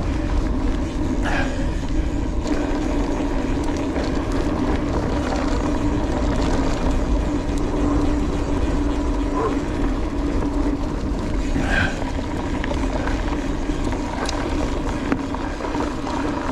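Mountain bike rolling on a gravel fire road: a steady tyre hum over low rumbling wind on the camera microphone.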